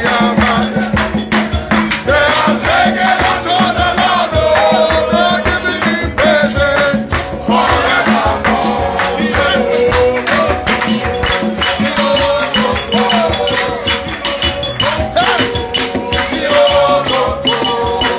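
Worship music with a dense, fast beat of shaker and rattle percussion, and pitched melodic lines bending over it.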